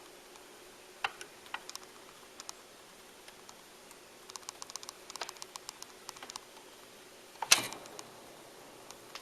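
Scattered vinyl clicks and pops over a faint steady hum from a BIC 980 belt-drive automatic turntable between plays of a record, with a run of quick clicks in the middle and one much louder sharp thump near the end.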